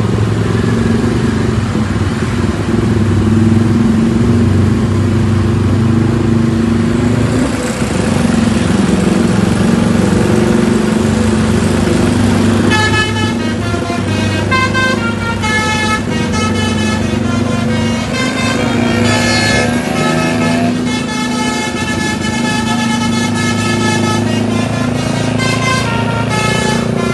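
Large diesel bus engines running, then from about 13 s in a bus telolet horn playing a melody of short multi-tone notes that change pitch every second or so, with a brief gliding passage near 20 s.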